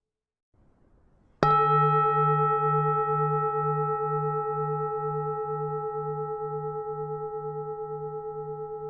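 Buddhist temple bell struck once about a second and a half in, then ringing on with a long, slowly fading tone of several pitches, its low hum pulsing about twice a second.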